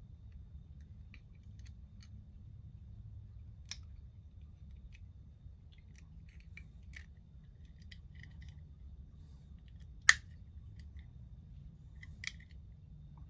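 Small clicks and taps of a die-cast Matchbox van's baseplate and wheels being pressed into its body by hand. One sharp click comes about ten seconds in, with quieter clicks near four and twelve seconds.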